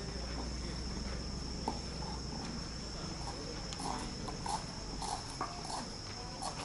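Evening insects, crickets, chirping in a steady high-pitched trill throughout. About four seconds in, a Shinto priest's footsteps on the stone path begin, short hollow clops about two a second.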